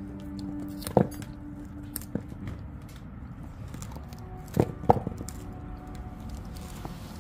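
Dog gnawing a partly frozen raw deer rib rack, with a few sharp cracks of teeth on bone: one about a second in, a lighter one soon after, and two close together near the five-second mark.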